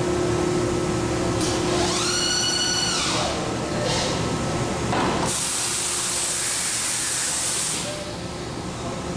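Komo VR510 Fusion 5-axis CNC router running over a steady hum. Its motor whine rises in pitch, holds and falls back, then a hiss of air comes for about two and a half seconds.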